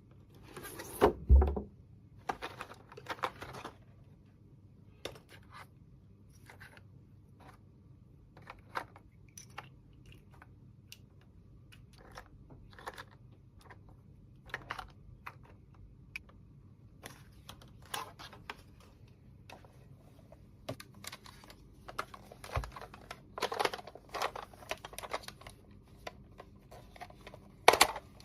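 Irregular clicks, taps and light rattles of small plastic toy pieces being handled, with a louder knock about a second in.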